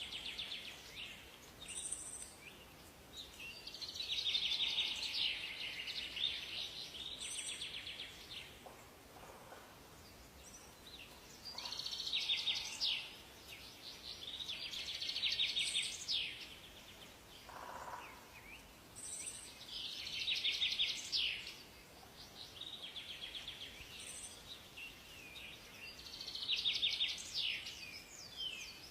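Songbirds singing in a forest: fast trilled song phrases of a few seconds each, repeating every few seconds, with short high chirps between them over a faint steady background hiss.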